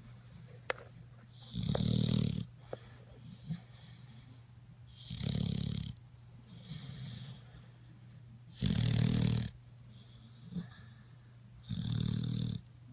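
Snoring: four loud, low, rattling snores about three seconds apart, with softer hissing breaths between them.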